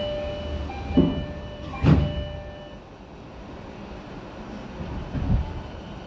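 Inside a 70-000 series electric train running on the line: a steady rumble with a whine of steady tones that shift in pitch in steps over the first few seconds, then fade. Loud knocks come about a second in, about two seconds in and again just after five seconds.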